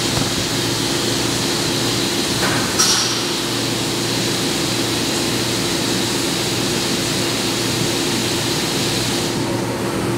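CNC vertical milling machine center-drilling the center of a breech plug: a steady spindle and motor hum under an even hiss of coolant spray, with a brief louder hiss about three seconds in. The high hiss drops away near the end as the spindle retracts.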